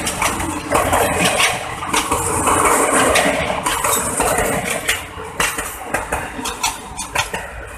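Ex-JR 203 series coaches rolling past behind a diesel locomotive: steel wheels clicking and clanking over the rail joints with metallic rattling, growing quieter toward the end.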